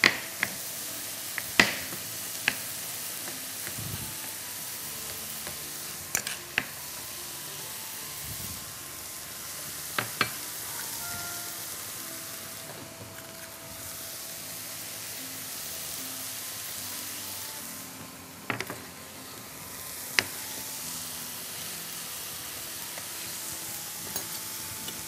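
Chicken strips, mushrooms and green peppers frying in a pan with a steady sizzle. Occasional sharp clicks of kitchen utensils come through it.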